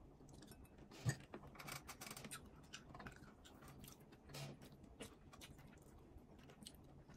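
Faint chewing and small eating noises from people eating by hand, a scatter of soft clicks and ticks, with one sharper click about a second in.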